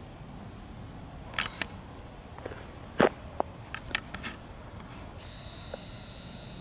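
Camera handling noise: a run of sharp clicks and knocks, the loudest about three seconds in, then a steady high whine from about five seconds in, typical of the camera's lens zoom motor as the shot changes.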